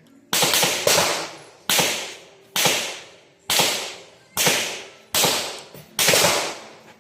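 Eight gunshots fired at a steady pace, a little under a second apart, each a sharp crack that rings away over about half a second: a shooter engaging targets on a practical shooting stage.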